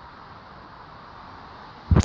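Steady whooshing background noise, then one loud bump near the end from the phone being handled.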